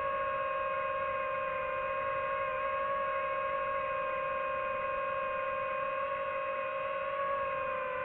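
DJI FPV drone's motors and propellers whining steadily, a held two-note hum whose pitch wavers only slightly as the throttle changes.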